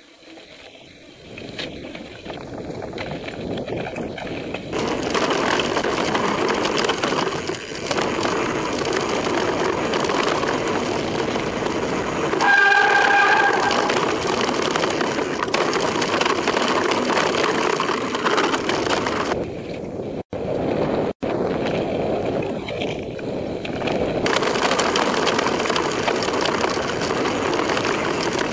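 Wind buffeting a helmet-camera microphone over the rumble and rattle of a mountain bike rolling fast down a gravel singletrack, building over the first few seconds. About halfway through there is a brief high squeal with several pitches.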